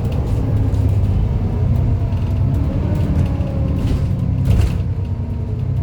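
Alexander Dennis Enviro400 double-decker bus running under way, heard on board: a steady low engine rumble with a faint whine that drifts slowly in pitch, the whine enthusiasts call a "hoover". A short hiss comes about four and a half seconds in.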